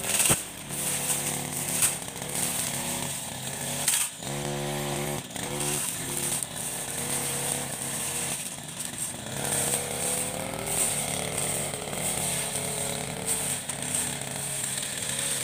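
Backpack brush cutter's petrol engine running at high revs as it cuts through grass and weeds. About four seconds in the throttle eases off and the engine pitch drops for a second or so, then rises back to full speed.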